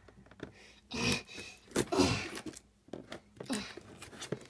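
A blade scraping and cutting at a cardboard box, in a few short scratchy bursts.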